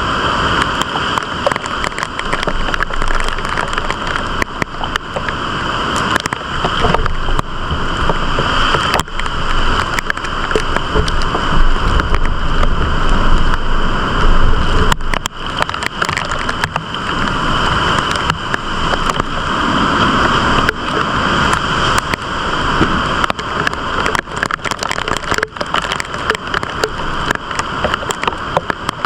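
Typhoon storm noise: a loud, steady rush of wind-driven heavy rain with dense rain pattering, and stronger gusts buffeting the microphone about halfway through.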